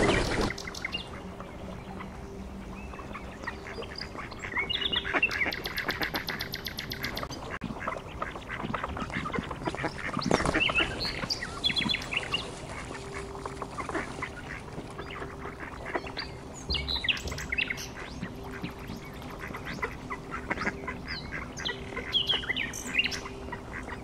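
A flock of ducks calling, with many scattered short quacks and high, brief calls.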